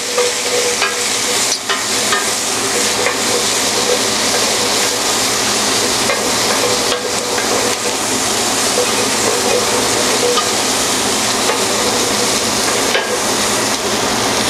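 Mirepoix of onions, carrots and celery sizzling steadily as it sautés in a tablespoon of hot turkey fat in a stainless steel pan, stirred with a wooden spoon. The spoon knocks against the pan now and then.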